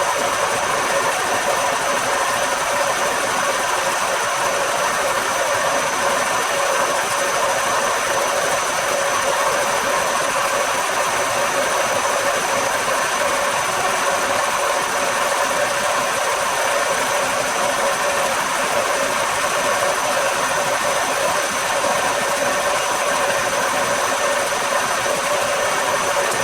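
A machine tool running steadily, a constant motor whirr with a hiss and a few steady hum tones that do not change.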